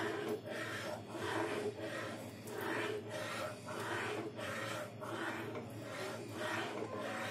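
A metal ladle stirring round a steel pot of thickened soup, swishing and scraping in a steady rhythm as beaten egg is drizzled in.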